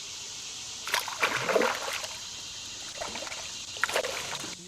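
Water splashing in short bursts, about a second in, around three seconds and again near four seconds, over a steady hiss.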